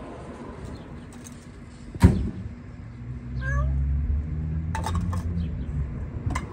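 A cat meowing once, a short rising call, with a sharp knock about two seconds in and a low steady rumble through the second half.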